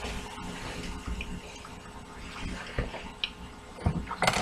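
Faint handling noises of small objects being moved on a surface, with a few light clicks, then a louder rustling clatter near the end.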